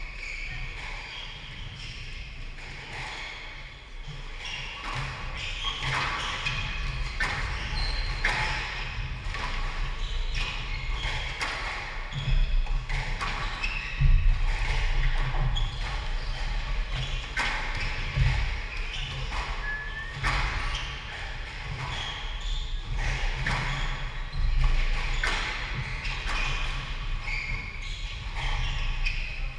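Squash rally: the ball smacking off rackets and walls at an irregular pace, with feet thudding and shoes squeaking on the wooden court floor, all echoing in the enclosed court.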